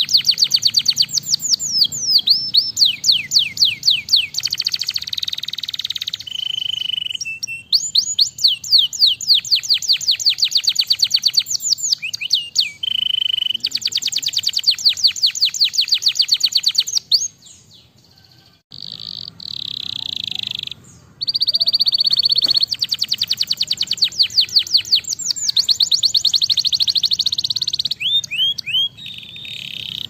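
Canary singing a long song of rapid trills: fast runs of repeated sweeping notes, with held steady notes between the runs, and a short break a little past halfway.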